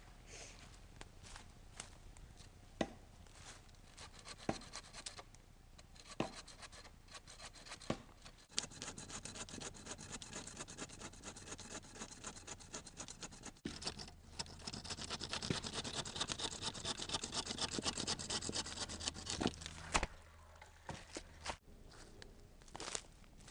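Hand saw cutting through a piece of red oak firewood in rapid strokes. The sawing starts about a third of the way in and grows louder before stopping near the end. It is preceded by a few scattered knocks.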